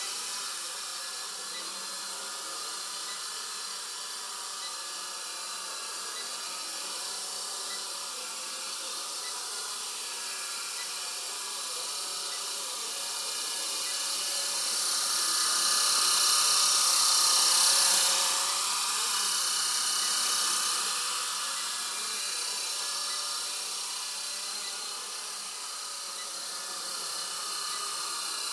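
Blade SR 120 electric micro RC helicopter hovering, its motor and spinning rotors giving a steady high whine that grows louder about halfway through and then eases off again.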